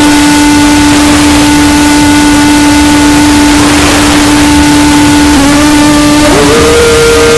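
Heavily distorted, over-amplified sound effect: a loud steady buzzing tone over dense hiss that jumps up to a higher pitch about six and a half seconds in.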